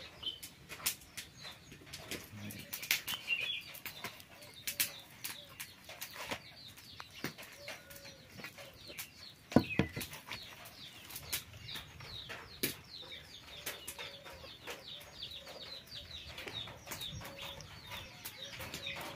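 Dry leaves crackling and rustling as they are handled, with hands pressing and smearing thick wet batter onto them, and one louder knock about ten seconds in. Small birds chirp rapidly in the background, more steadily in the second half.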